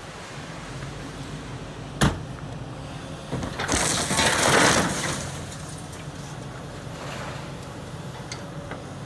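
A scrapyard material handler's steel grapple claw biting into the roof of a Range Rover P38: a sharp crack about two seconds in, then a loud crunch of metal and windshield glass lasting a second or two as the tines punch through. A steady low drone from the machine runs underneath.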